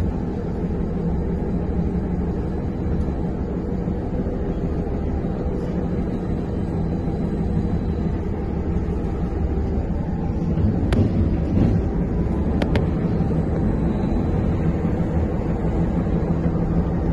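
Inside a Trolza-5275.06 Optima trolleybus under way: steady rumble of the running bus and its tyres on the road, with a few sharp clicks in the middle.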